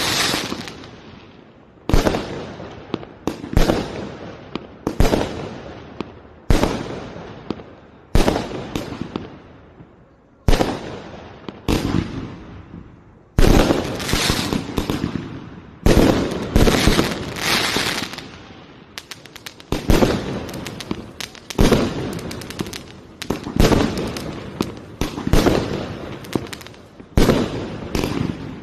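Aerial fireworks bursting overhead one after another, a sharp bang every second or so, each dying away in a long echo. About two-thirds of the way through comes a quick run of crackling small reports.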